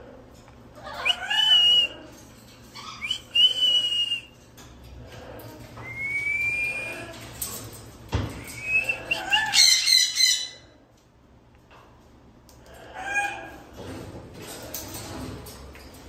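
White cockatoo calling: a series of separate squawks and whistled calls, some gliding upward in pitch, with the loudest and harshest squawk about ten seconds in. A single thump about eight seconds in.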